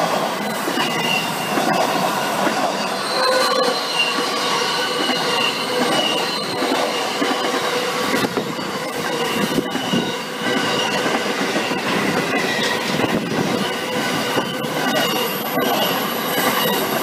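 Container wagons of a Pacific National intermodal freight train rolling past close by, wheels squealing in several steady high tones and clacking over the rail joints.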